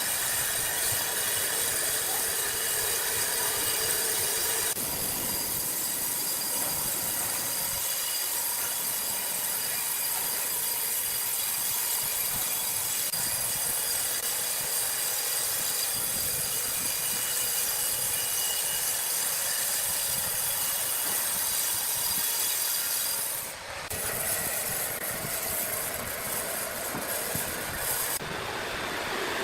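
Sawmill machinery running, a steady high-pitched whine over a hiss. The sound changes abruptly about five seconds in and twice more near the end.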